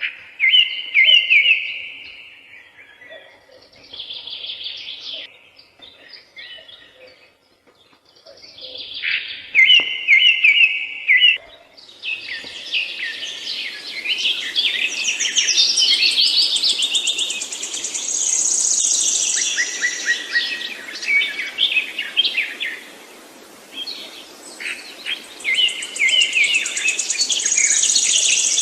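Songbirds singing, short chirping phrases repeated with pauses between them. About halfway through several birds overlap into a dense chorus over a steady hiss.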